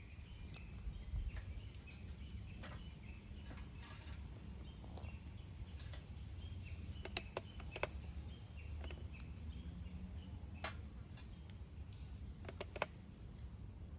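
Small wood fire in a fire stand crackling, with irregular sharp snaps and pops over a low steady rumble. Faint bird chirps sound near the start.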